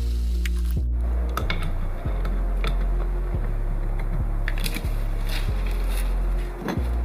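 Background music: a low bass line stepping to a new note about every two-thirds of a second, with light clicks over it.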